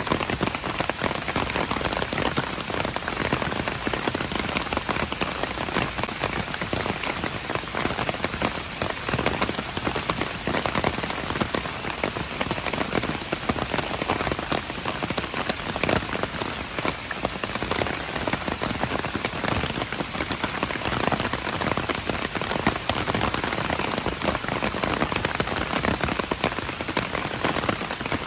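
Steady rain falling and pattering on hard surfaces, a dense, even hiss of drops.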